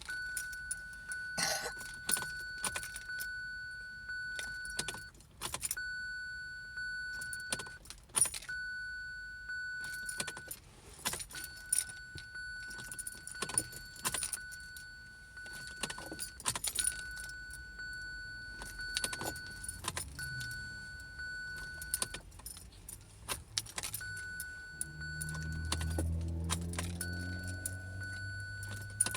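Ignition key of a 2017 Kia Sorento that won't start being turned again and again, with key jangling and repeated sharp clicks. A steady high-pitched warning tone cuts out and comes back with each turn, and a low rumble comes up about 25 seconds in.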